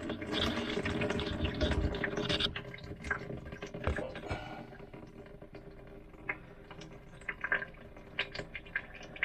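Water running down an RV sink drain, heavier for the first two and a half seconds or so, then easing to a trickle with scattered drips.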